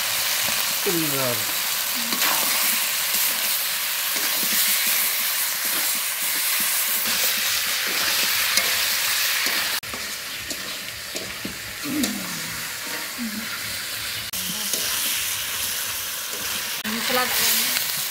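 Chicken pieces and potato wedges sizzling and frying in masala in a metal kadai, with a spatula stirring through them.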